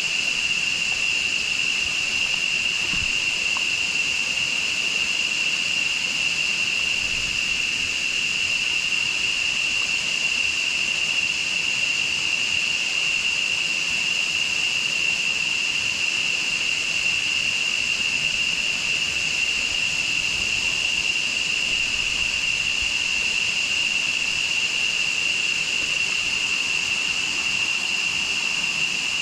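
Insects droning in the jungle: one continuous, unvarying high-pitched buzz with no breaks.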